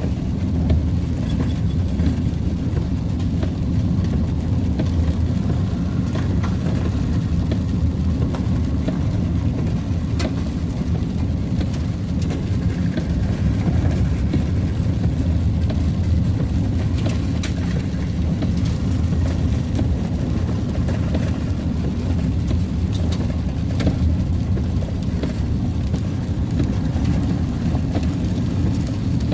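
Steady low rumble of a truck driving, with engine and road noise heard from inside the cab.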